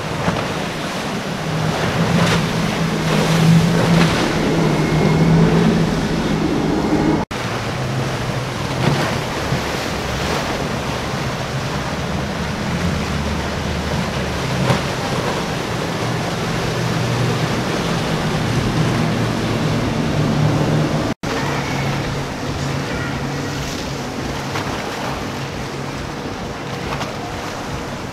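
Outboard engines on center-console fishing boats running at speed through choppy water. A low, steady engine drone sits over the rush of hull spray and breaking waves. The sound breaks at two abrupt cuts, about 7 and 21 seconds in, where a different boat passing takes over.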